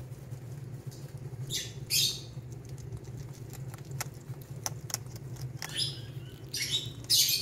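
Baby hedgehogs, three to four weeks old, crunching dry kibble pellets: irregular short crunches and clicks, several louder ones near the end, over a steady low hum.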